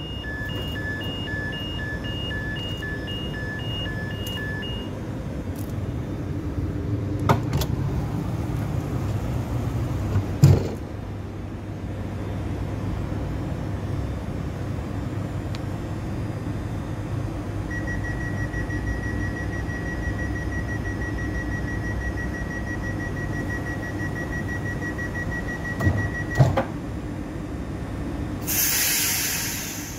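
Electric commuter train standing at the platform with its equipment humming steadily. A two-tone beeping comes in the first few seconds, then a couple of knocks. From about the middle, a rapid door-closing warning beeps for about eight seconds, ending as the sliding doors shut with a thump, and near the end comes a short burst of air hiss.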